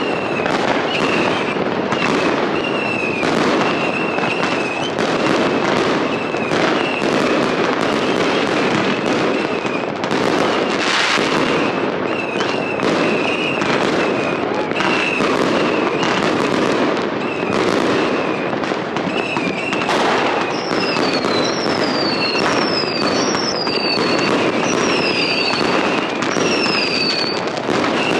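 Many New Year's Eve fireworks going off at once: a dense, unbroken run of bangs and crackling from aerial shells and firecrackers. A wavering whistle-like tone runs through it, and several short falling whistles come in the last third.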